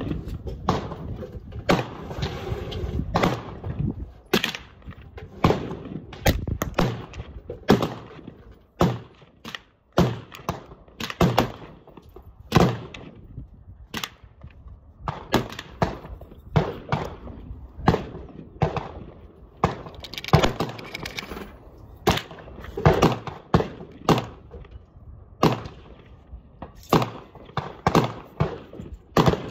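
A long, uneven run of sharp knocks and bangs, about one or two a second, some with a brief ring or echo after them.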